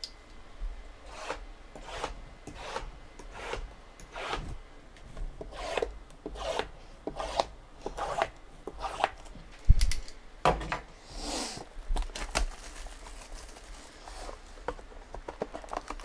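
Cardboard trading-card hobby boxes being handled and slid against one another: a run of short scraping rubs, with one sharp knock about ten seconds in.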